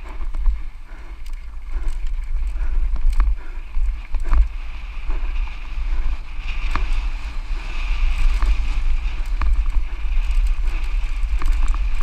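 Santa Cruz Nomad full-suspension mountain bike descending a rough trail at speed: wind buffets the microphone, with a constant clatter of knocks and rattles from tyres, chain and frame over rocks. A steady hiss grows about halfway through.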